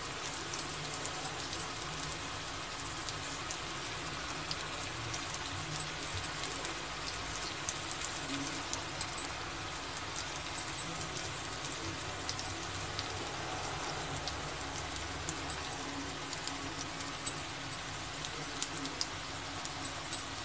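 Masala-coated raw banana slices shallow-frying in oil on a dosa tawa: a steady sizzle with frequent small crackles and pops.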